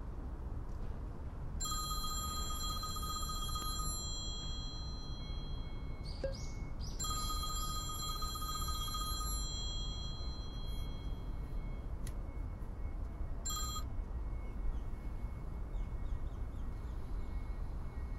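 Smartphone alarm ringing in repeated electronic bursts of about two seconds each, twice, then a short third burst that is cut off, as the alarm is switched off.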